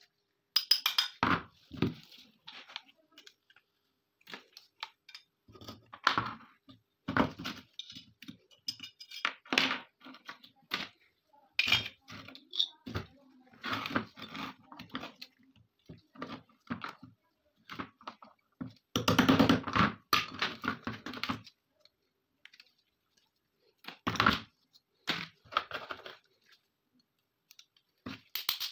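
Irregular metal taps, clicks and clinks as a rusty pistol is stripped by hand: a small hammer tapping a pin punch, and pliers gripping and working small steel parts loose. A quick run of taps comes about two-thirds of the way through.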